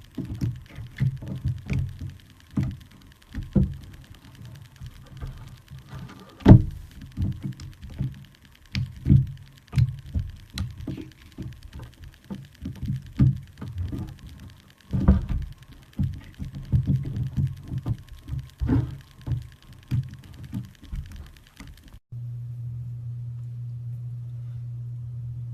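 Slime being squeezed and poked by hand: soft, irregular squelches with sharp air-bubble pops, several a second. Near the end the squishing cuts off and a steady low hum takes over.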